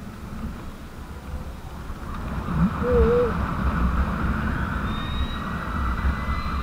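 Electric motorcycle riding along a street: wind rushing over the microphone and tyre and road noise grow louder about two seconds in as it picks up speed. A faint high motor whine rises in pitch and then holds near the end.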